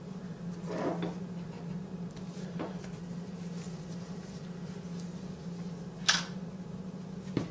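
Rotary cutter cutting through leather on a rubber board: a few short scraping strokes, the first about a second in, then a sharp click about six seconds in and a smaller one near the end, over a steady low hum.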